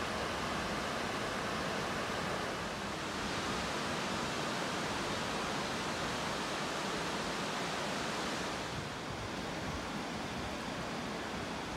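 Steady rushing of river water pouring over a low weir, an even hiss with no breaks; the higher part of the hiss eases off about three quarters of the way through.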